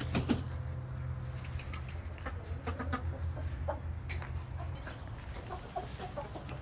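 Chickens clucking in short, scattered calls, over a steady low hum that stops about five seconds in.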